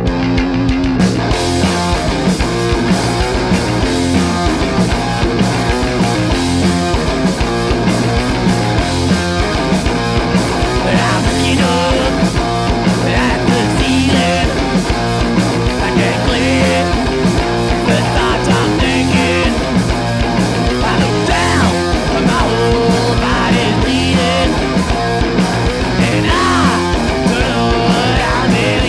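Live punk/grunge rock band playing in a rehearsal room: distorted electric guitar, bass guitar and drums. A sparser guitar-and-bass part gives way to the full band about a second in.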